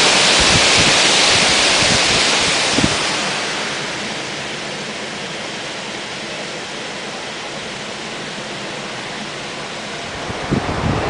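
Strong wind gusting, with low buffeting thumps on the microphone, for about the first three seconds, then easing to a steadier, quieter rush. Near the end the gusts and buffeting pick up again.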